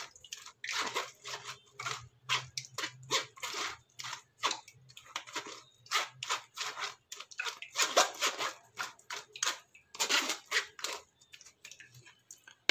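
Blended watermelon and beetroot pulp being pressed and stirred through a plastic strainer with a spoon: wet squelching and scraping in quick, irregular strokes as the juice is strained out.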